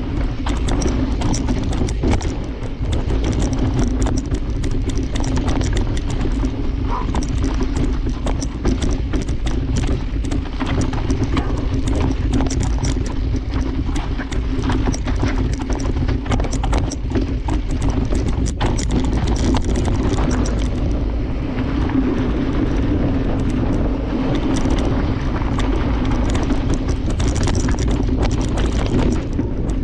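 Mountain bike descending a rough dirt trail: tyres running over rocks and ruts with a constant clatter of irregular knocks and rattles from the bike, over a steady low rumble of wind on the microphone.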